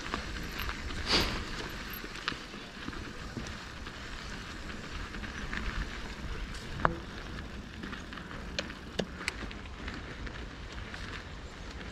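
Mountain bike rolling along a dirt trail: a steady crackle of tyres on loose dirt over a low rumble, with a few sharp clicks and knocks, the loudest about a second in.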